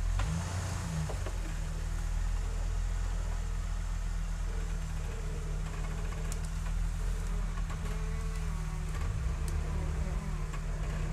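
Jeep Wrangler engine running at a low, steady idle as the Jeep crawls slowly down a steep trail obstacle.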